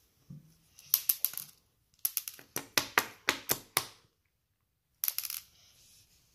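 Sharp clicks and crackles from a chocolate-topped biscuit bar being handled and its hard candy-coated chocolate pieces picked off: a short cluster about a second in, then a quick run of about eight clicks, and another short burst near the end.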